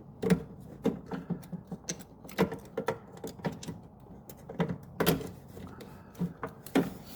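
Irregular clicks, taps and knocks of hands fumbling with a front turn signal light and its wire behind a car bumper, twisting the socket to free it.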